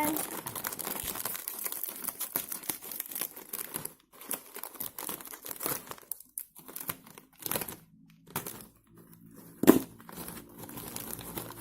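Crinkly plastic snack packet being torn open and handled, with dense crinkling for the first few seconds, then scattered rustles and one sharp tap near the end.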